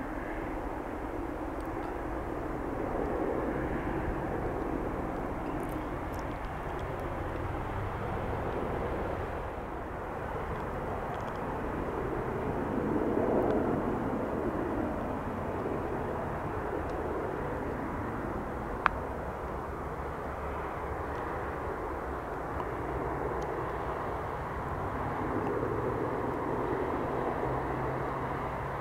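AH-64D Apache attack helicopter flying at a distance: a steady drone of rotor and engine noise that swells and fades three times as it passes. A single sharp click sounds about two-thirds of the way through.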